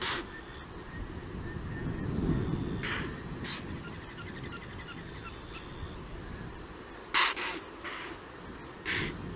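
Impala alarm calls: short, harsh snorting barks, about seven in all, coming every second or two with a cluster near the end. The loudest comes around seven seconds in. The herd is sounding the alarm at approaching lions.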